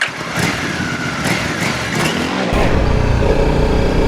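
Honda CRF motorcycle engine running, growing louder and fuller from about two and a half seconds in.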